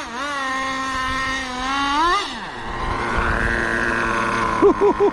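Nitro RC truck's small two-stroke glow engine running at high revs. The revs rise sharply about two seconds in and then fall away. The engine then runs more quietly, with a few short throttle blips near the end.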